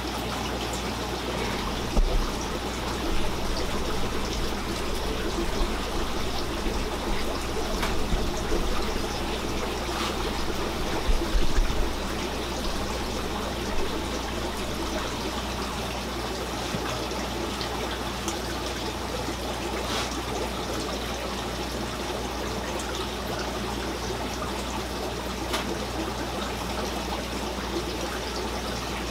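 Steady trickle of water running in aquarium tanks' filtration, over a low steady hum, with a few dull knocks in the first half.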